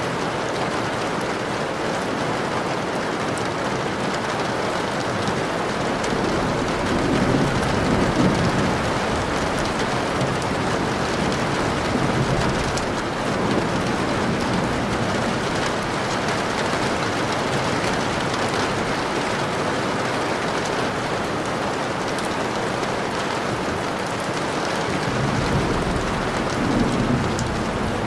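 Steady rain with low rumbles of thunder, one about seven seconds in and another near the end.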